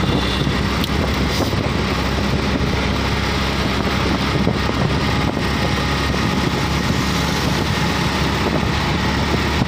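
Steady engine and road noise from a moving motor vehicle, with wind rushing over the microphone.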